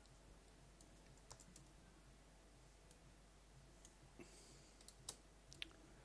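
Near-silent room tone with a few faint, scattered computer mouse and keyboard clicks, more of them in the second half.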